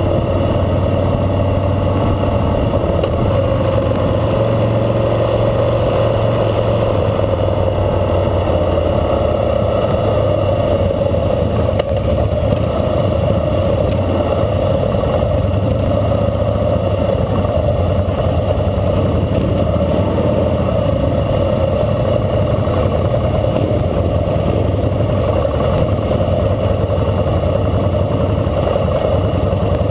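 A 2012 Harley-Davidson Fat Boy Lo's V-twin engine running steadily while cruising, heard up close from a mount on the bike itself.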